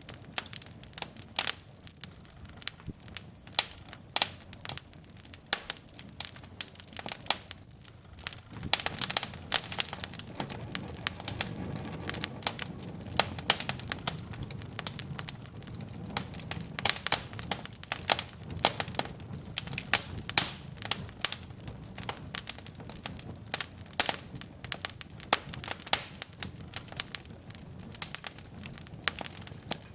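Wood logs burning in a fireplace, crackling and popping with many sharp snaps; from about eight seconds in, a low rush of flame runs under the pops.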